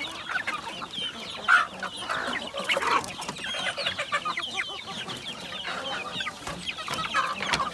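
Half-grown native chickens clucking with many short calls while they feed, with scattered sharp clicks of beaks pecking at the feed in a clay bowl.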